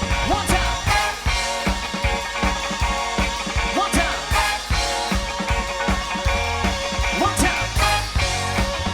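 A live soul band playing an instrumental passage with a steady drum beat, bass and sustained chords, with no singing.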